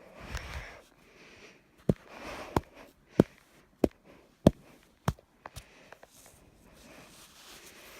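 Six sharp knocks in a steady rhythm, about two-thirds of a second apart, with a few smaller clicks after them. Heavy breathing close to the microphone fills the gaps.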